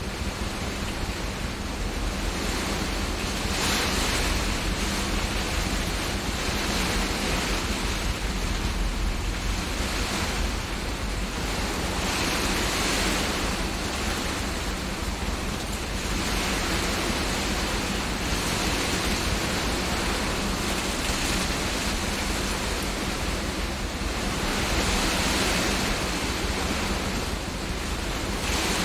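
Heavy rain and hail drumming on a greenhouse roof as a dense, continuous clatter, with wind gusts that swell it every few seconds.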